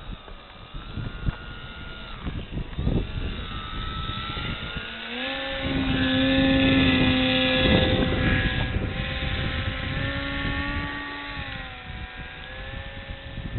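Foam RC airplane's motor and propeller whining as the throttle changes. The pitch glides up about five seconds in, holds high, then drops back down near the end, over a low rushing noise.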